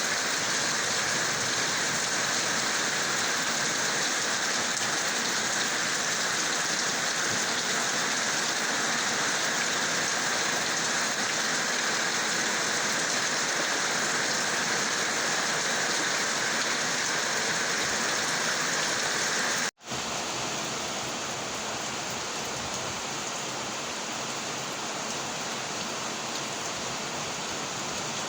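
Heavy rain falling in a steady, dense hiss. It breaks off for an instant about two-thirds of the way through, then carries on slightly quieter.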